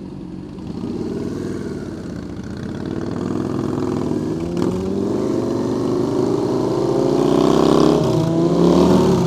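Sport motorcycle engine revving up, its pitch climbing steadily for several seconds, then changing pitch near the end.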